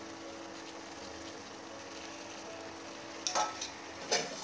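Gravy sizzling faintly in a pan over low heat, with a steady low hum, then two sharp metallic clinks of utensils against the pan about three and four seconds in.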